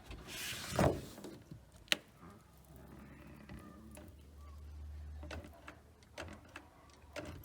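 A door being pushed shut against an Allen key wedged in its bottom hinge, levering the hinge to widen the gap. There is a brushing sound in the first second, a sharp click about two seconds in, then faint scattered clicks.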